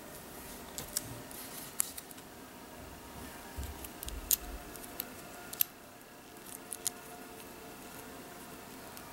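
Light, sharp clicks and taps of small plastic toy pieces being handled, a handful of separate clicks spread irregularly with the loudest two in the middle.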